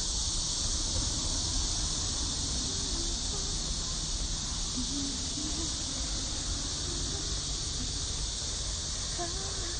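A chorus of cicadas buzzing steadily at a high pitch, with a low rumble underneath.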